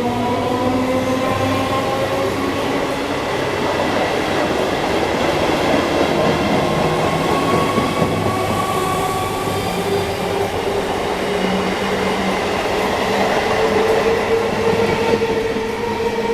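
Electric multiple unit local train running along a station platform: a steady loud rumble of wheels on rails, with whining tones that slowly glide up and down in pitch.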